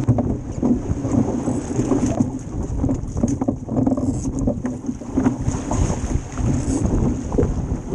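Wind buffeting the microphone of a stern-mounted action camera on a fast-sailing Club 420 dinghy, with water rushing and splashing along the hull. The gusting rises and falls unevenly.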